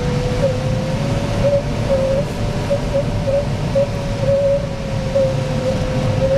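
Steady rush of airflow in a Cirrus 75 glider's cockpit, with a continuous mid-pitched electronic tone from the audio variometer that flicks briefly higher every second or so.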